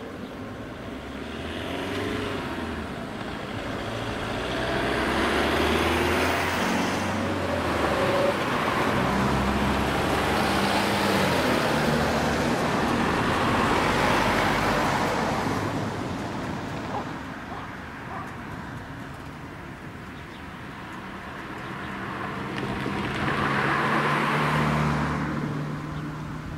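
Road vehicles driving over the open level crossing, passing close by: a long stretch of engine and tyre noise through the middle, then another vehicle passing near the end.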